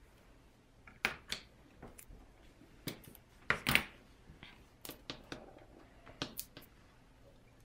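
Hands unwrapping and handling a shrink-wrapped deck of game cards: scattered light plastic crinkles and clicks, the loudest cluster about three and a half seconds in.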